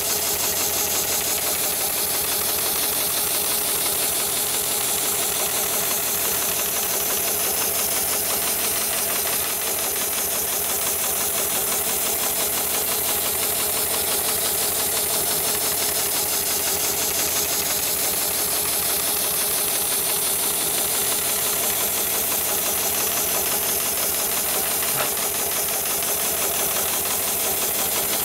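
Heavy-duty automated CNC shoe-sole stitching machine running steadily, its needle mechanism making a fast, even mechanical rattle.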